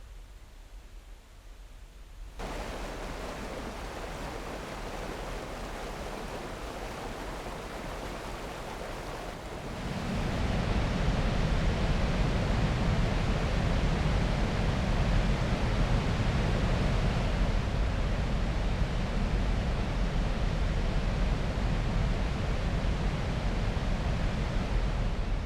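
Steady rushing of water, faint at first, growing louder about two seconds in and louder again near ten seconds, when a deep rumble joins it.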